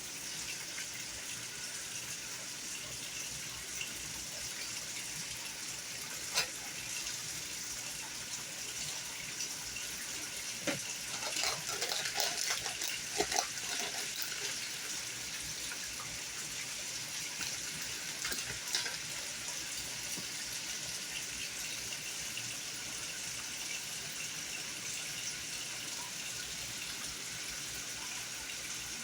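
Chicken frying in hot oil: a steady sizzle, with a few crackles and pops about six seconds in, a cluster of them around the middle, and one more a few seconds later.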